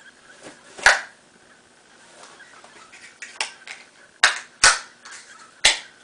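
Balisong (butterfly knife) drawn from a kydex pocket sheath and flipped by hand: a sharp click about a second in, a few light ticks, then three loud clacks of the handles near the end.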